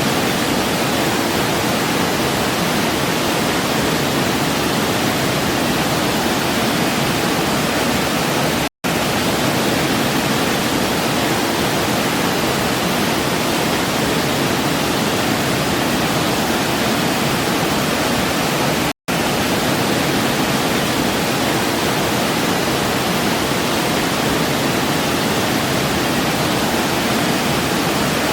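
Waterfall cascade rushing in a steady, loud wash of water, cut by two brief dropouts to silence, about nine and nineteen seconds in.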